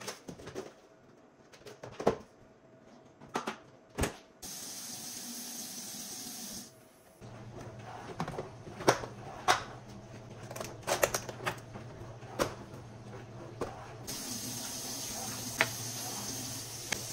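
Kitchen cleanup sounds: sharp clicks and knocks of plastic food containers and lids being handled and snapped shut. Twice, a tap runs steadily into the sink: once for a couple of seconds about four seconds in, and again from about fourteen seconds in.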